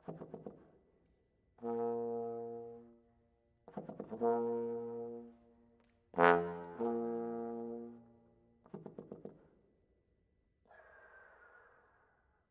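Solo tenor trombone playing long, low sustained notes, several of them begun with a rapid stutter of short tongued attacks. About six seconds in, one note is struck much louder and brighter than the rest. Near the end comes a quiet, unpitched, airy breath noise.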